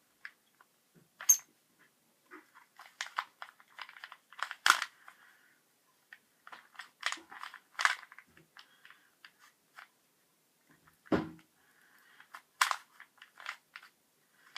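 Plastic Rubik's cube being twisted by hand: irregular runs of sharp clicks and clacks as the layers turn, the cube stiff. A duller knock comes about eleven seconds in.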